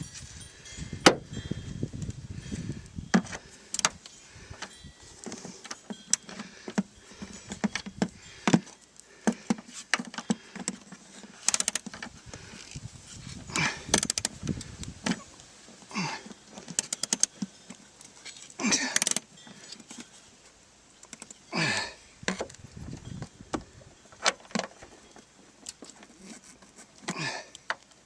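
Socket wrench on a universal joint tightening a strut's top mount nuts: sharp metal clicks and clinks of the tools, with several short rattling runs of ratcheting.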